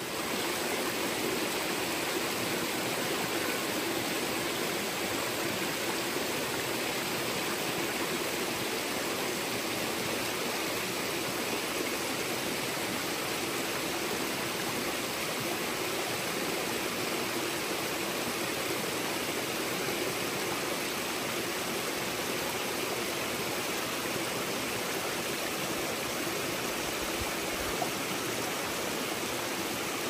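Shallow mountain stream running over rocks and small cascades: a steady, even rush of water.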